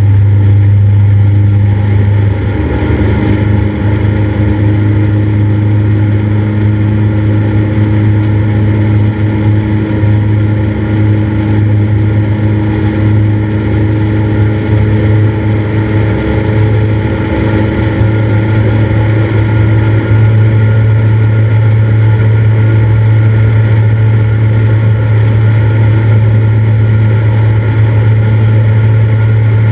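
Cessna 172's piston engine and propeller running steadily, the engine note changing about two and a half seconds in and returning to its earlier steady drone about twenty seconds in.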